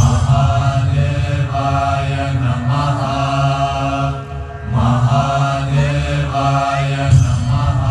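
Voices chanting a mantra in phrases over a steady low drone, with short pauses about four and a half and seven seconds in.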